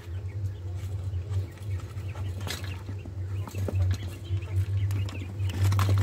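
Japanese quail in a cage making soft clucking calls, with scattered short clicks and scrapes, over a steady low hum.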